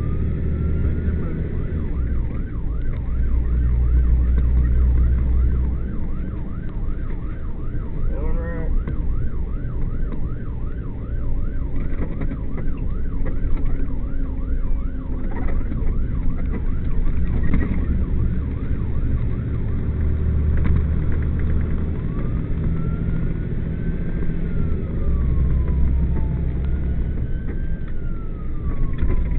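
Emergency vehicle siren on a responding fire tanker, heard over heavy, steady engine and road rumble. The siren changes from a slow wail to a fast yelp, about four sweeps a second, for roughly ten seconds. In the second half it goes back to slow rising and falling wails.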